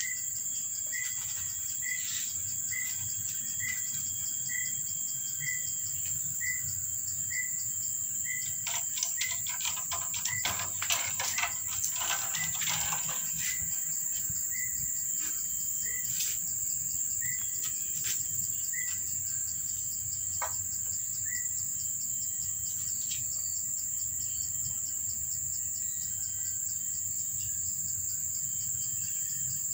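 Steady high-pitched insect drone throughout, with a short chirp repeating about every half second through the first two-thirds. Around the middle, a few seconds of scratching and scraping: a cat clawing at a wooden door.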